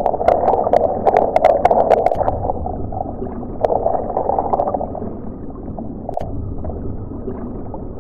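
Water bubbling and gurgling, a dense rumbling churn, with many sharp clicks clustered in the first two seconds and a few scattered later.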